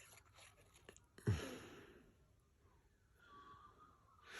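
Faint rustling and handling of paper scraps, in a quiet small room.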